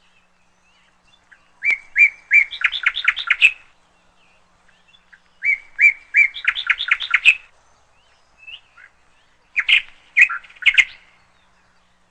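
A songbird singing three phrases, each a couple of clear whistled notes followed by a quick trill of about eight notes; the third phrase, near the end, is shorter.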